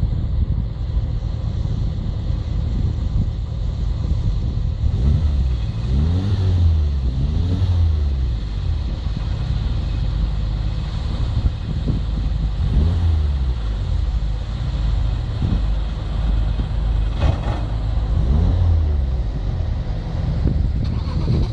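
Mitsubishi Lancer Evolution IX's turbocharged four-cylinder engine accelerating, its pitch rising in several runs with drops between as it changes gear, over a steady low rumble.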